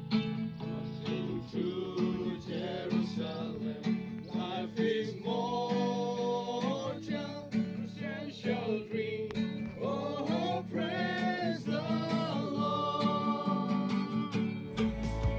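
A group of voices singing a Christian worship song to a strummed acoustic guitar, the sung lines held and gliding over a steady strum.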